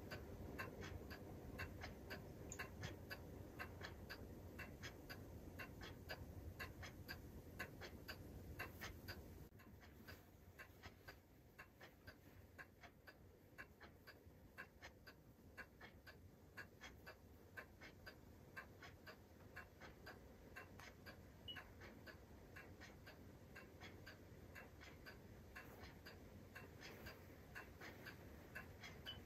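Near silence with faint, regular ticking, like a clock. A low background hum drops away about nine seconds in.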